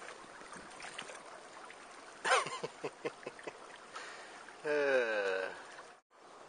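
Faint steady trickle of a shallow, rocky creek, with a short sweeping call about two seconds in and a louder wavering hum about a second long near the end, then the sound cuts off suddenly.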